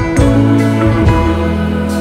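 Background music: a guitar-led instrumental over held bass notes that change pitch a couple of times.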